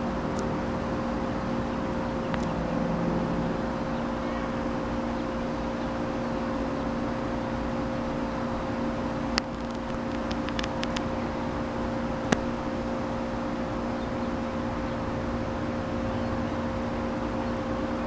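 Steady buzzing hum of a honey bee swarm clustered on a tree branch, with a few sharp clicks around the middle.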